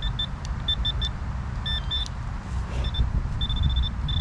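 Metal detector giving short, high-pitched beeps in irregular stutters, with longer runs of beeps near the end, signalling a metal target; a steady low rumble runs underneath.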